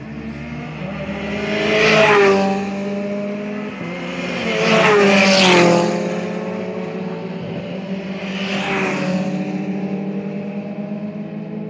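Three cars passing at speed one after another on a race track, each engine note swelling and then dropping in pitch as it goes by; the second, about five seconds in, is the loudest. A steady drone of other engines sits underneath.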